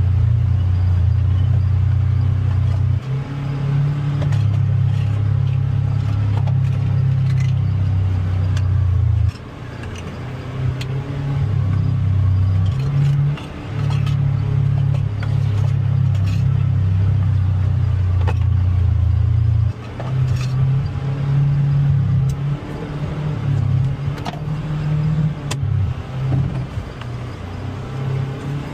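Polaris Xpedition UTV engine running under load, its pitch stepping up and down with the throttle and easing off sharply twice, about nine and about twenty seconds in. Scattered knocks and rattles sound over the engine.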